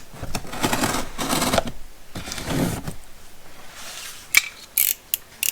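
A box cutter slicing through packing tape and a cardboard box, with cardboard scraping and rustling in several strokes, followed by a few sharp clicks near the end.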